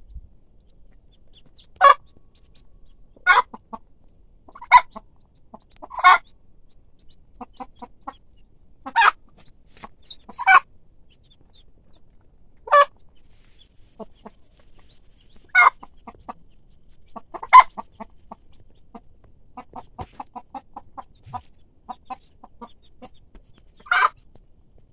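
Hen clucking as her chicks feed: about ten short, sharp clucks spaced one to three seconds apart, with fainter quick short sounds in between.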